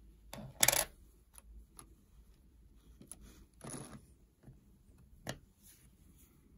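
2-euro coins being handled: a loud clink about half a second in, a short scrape a little after three and a half seconds, a sharp click about a second later, and fainter ticks between.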